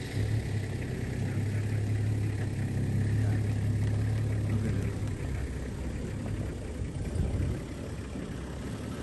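Vehicle engine idling with a steady low hum, which weakens about halfway through.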